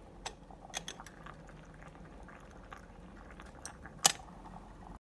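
Aluminium moka pot on a small electric stove, crackling and sputtering as its water boils, with scattered sharp clicks, the loudest about four seconds in.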